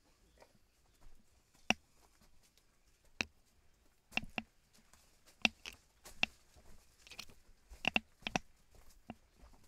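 Footsteps on a dry, leaf-littered rocky trail: irregular sharp clicks and scuffs, a few single steps early on, then bunching closer together from about four seconds in.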